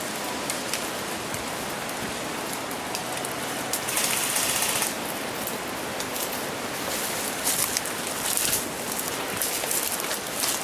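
Rustling and footsteps of people moving through forest undergrowth over a steady hiss, with scattered sharp clicks. It gets louder for about a second around four seconds in and again in short bursts around eight seconds.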